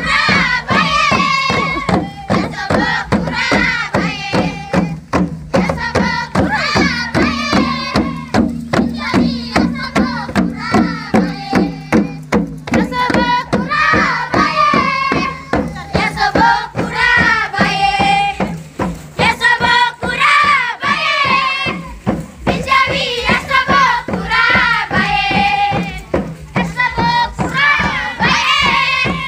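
Group of men and women singing a Biak wor song in call-and-response fashion over a steady, fast beat of tifa hand drums.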